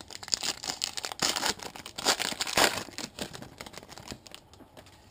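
Foil wrapper of a trading card pack crinkling and tearing as it is opened by hand, a busy crackle that thins out over the last second or so.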